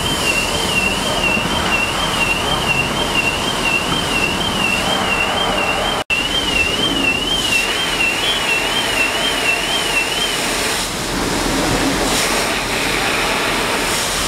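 A car alarm warbling rapidly up and down in pitch, which stops about ten seconds in, over a steady loud rushing hiss of water spraying from fire hoses.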